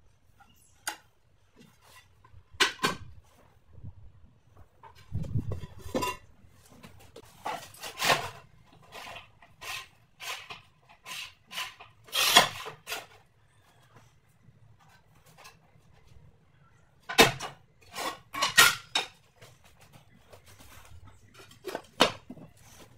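Porcelain floor tiles being handled, set down and cut on a manual rail tile cutter: scattered sharp clinks, taps and scrapes of ceramic and metal, with a cluster of louder knocks in the second half.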